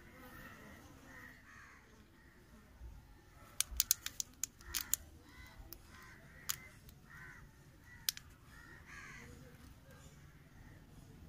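Crows cawing repeatedly in short, rough calls. A cluster of sharp clicks and crackles about four seconds in, with a couple more later, comes from the thin plastic cups being handled.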